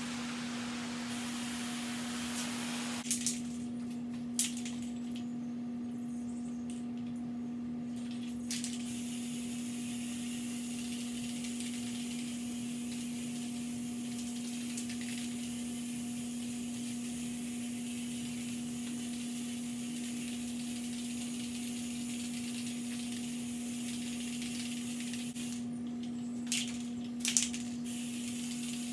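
Valspar flat white paint-and-primer aerosol spray can hissing in long, steady passes. The hiss stops for several seconds near the start, where a few sharp clicks fall, and more clicks come near the end. A strong steady low hum runs underneath.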